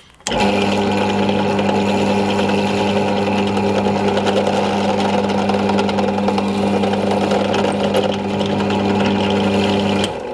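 Benchtop drill press switched on, its motor running with a steady hum while the bit drills a 5 mm hole into an ash block, then switched off and winding down near the end.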